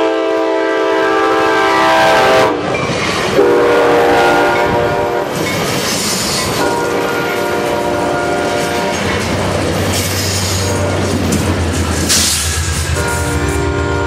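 Altamont Corridor Express commuter train passing at speed, its horn sounding several long blasts over the clatter and rumble of its wheels on the rails. The first blast drops in pitch as the train goes by, and the later ones are lower.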